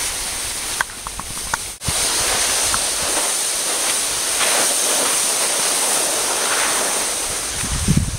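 Steady hiss of skis sliding over packed snow, mixed with wind rushing over the microphone as the skier carrying the camera moves downhill. It cuts out briefly about two seconds in, and there is low wind buffeting near the end.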